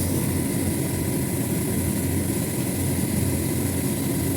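Steady low mechanical drone with faint steady whining tones above it, the sound of refrigeration machinery running.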